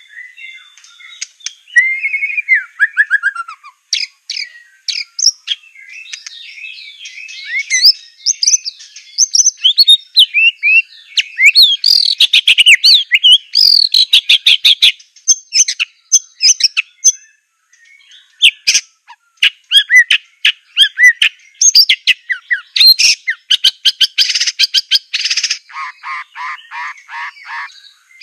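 White-rumped shama of the Aceh strain singing a long, varied song of rapid whistles, trills and sharp chattering notes. Near the end comes a run of about eight repeated lower notes at roughly four a second.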